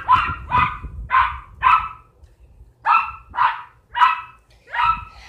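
A dog barking repeatedly: about eight sharp barks in two runs, with a pause of about a second near the middle.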